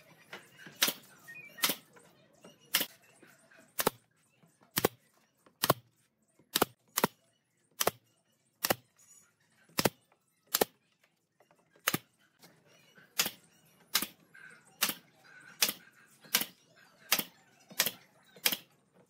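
A series of sharp, short knocks or taps, roughly one or two a second at uneven spacing, some coming in quick pairs.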